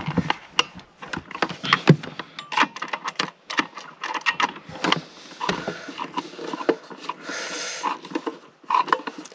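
Handling noises from fitting a white plastic wall socket into a plywood cabinet: many small irregular clicks and knocks of plastic, wood and tools, with a short rustle about seven seconds in. A hand screwdriver is set to the socket's mounting screw near the end.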